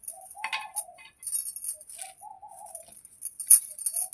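A bird cooing in a short warbling phrase, repeated three times about two seconds apart, over scratchy rustling and a few clicks of handling, the loudest rustle about three and a half seconds in.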